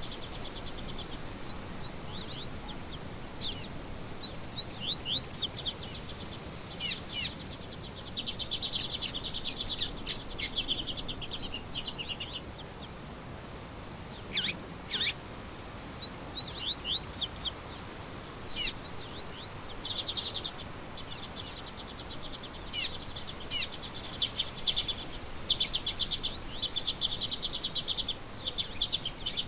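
Small songbirds chirping and trilling: many quick, high notes and short, rapid, buzzy trills, over a faint steady background hiss.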